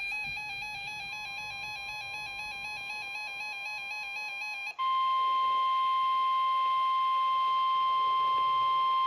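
NOAA Weather Radio's 1050 Hz alert tone: a loud, steady single-pitched beep that comes on about halfway through and holds. Before it, a softer warbling electronic tone with overtones plays.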